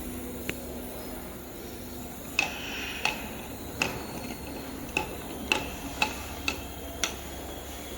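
Automatic bottle-capping machine with a cap sorter running with a steady low hum, over which come sharp clicks and clacks at uneven intervals, about nine in all, most of them after about two seconds in.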